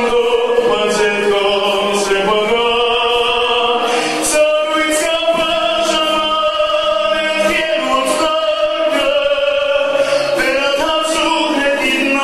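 Male soloist singing an Armenian song into a microphone, holding long notes with vibrato, with a choir singing along.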